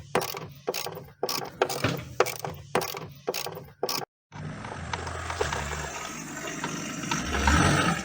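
Ratchet wrench with a long 10 mm socket worked back and forth, clicking in short bursts about twice a second while undoing the bolts of a car door check strap. About four seconds in it cuts off briefly, then a steadier mechanical noise follows.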